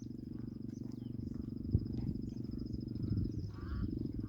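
Outdoor ambience: a low rumble of wind on the microphone, with a steady, high, rapidly pulsing insect trill.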